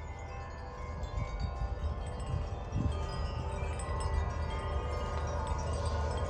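Wind chimes ringing in the wind, many overlapping held tones sounding together over a low rumble, growing louder about a second in.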